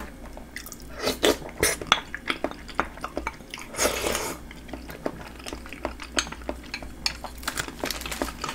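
Close-miked eating sounds: wet chewing with many sharp clicks and smacks, and a short slurp from a bowl of spicy sauce about four seconds in.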